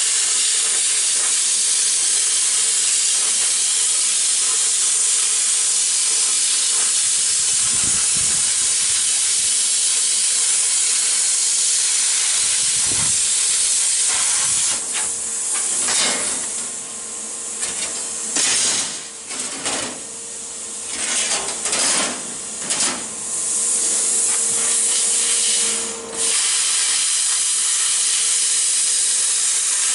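Hand-held plasma cutter torch hissing steadily as it cuts through 14-gauge sheet metal. About halfway through, the hiss cuts out and restarts several times in quick succession, then runs steadily again.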